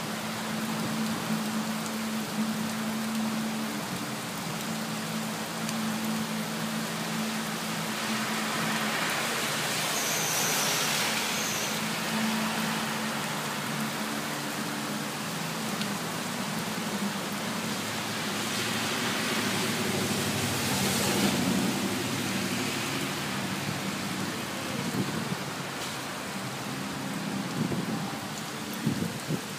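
Steady heavy rain falling on a street, with a low engine hum in the first part. Vehicles hiss past on the wet road, loudest about ten and twenty seconds in.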